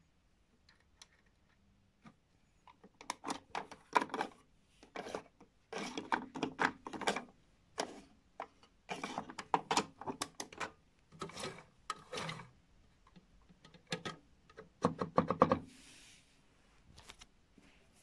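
Hands handling the plastic door and front panel of a Miele toy washing machine: bursts of clicking, knocking and rubbing come in short clusters, with no motor running.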